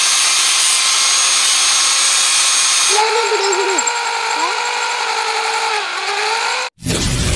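Angle grinder cutting a flat steel strip, a loud even grinding hiss for about three seconds. Then an electric drill runs, its motor whine dipping now and then as the bit bites into the metal. It stops abruptly near the end and music starts.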